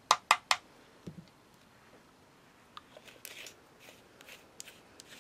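Three quick sharp clicks, then faint light ticks and short rustles as small hand tools and paint supplies are handled on a tabletop.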